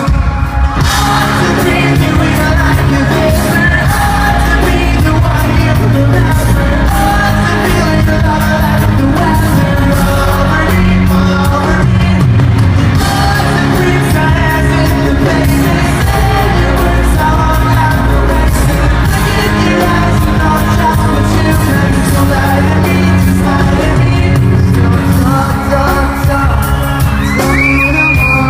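Live pop-rock band playing loudly in a large hall, with a singer's voice over drums and guitars and crowd shouts and screams mixed in.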